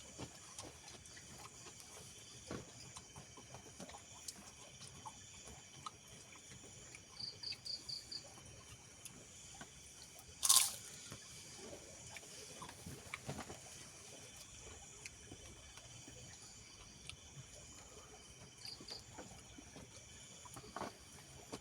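Soft eating sounds, small bites, crunches and clicks of food and utensils, over a steady background of insects chirping, with short trills now and then. A brief loud hissing burst comes about halfway through.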